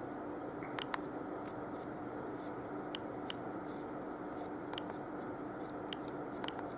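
Quiet pause between ringtones: steady background hiss and a low hum, with a few faint scattered clicks.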